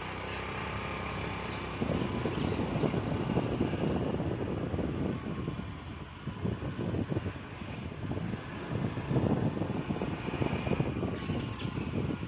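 Running noise of a moving road vehicle, heard from on board, with an uneven, gusting low rumble of wind on the microphone that grows louder about two seconds in and surges again near the nine-second mark.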